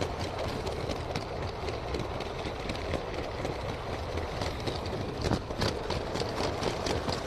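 LEGO train running along plastic LEGO track: a steady motor and wheel rumble with many small clicks from the wheels passing over the track joints, a few louder ones a little over five seconds in.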